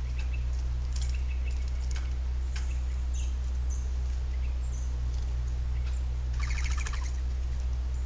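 Pileated woodpecker pecking at a wire suet cage, heard as scattered taps, with a quick run of rapid taps about six and a half seconds in. Small birds chirp briefly, and a steady low hum runs underneath.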